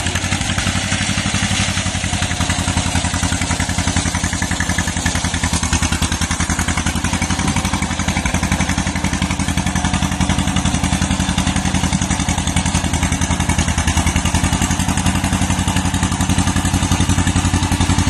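Old John Deere crawler bulldozer's engine running steadily under work, with an even, rapid firing beat.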